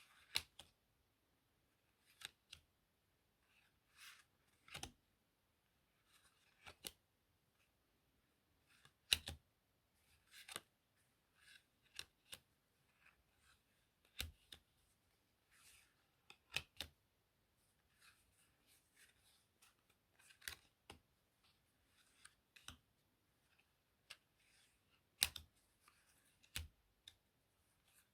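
Playing cards handled close to the microphone: soft rustling and sliding, broken every second or two by sharp card clicks. The loudest clicks come about nine seconds in and again a few seconds before the end.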